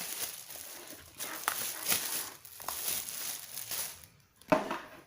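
Plastic wrapping crinkling and rustling as it is pulled off a new keyboard, with scattered crackles. A single sharp knock, the loudest sound, comes near the end.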